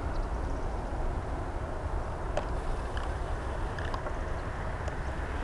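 Steady, distant rumble of an Airbus A340's four jet engines at takeoff climb power as the airliner climbs away, with a few faint clicks.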